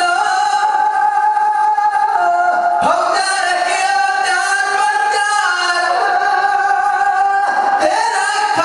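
Group of Sikh men singing a devotional song into microphones, holding long drawn-out notes, with the pitch dropping and the line breaking about three seconds in and again near the end.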